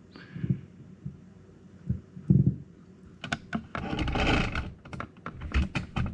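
Handling noise from the mixer and effects processor controls: a couple of dull thumps, then a quick run of clicks and knocks with a short rustle about four seconds in, as the return level is turned up.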